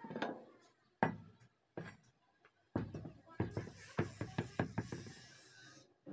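Heavy steel anvil blocks and blacksmith's tools being handled and set down on a dirt floor: a series of metallic knocks and clanks, with a quick run of knocks between about three and a half and five seconds in, and some scraping as a block is slid along.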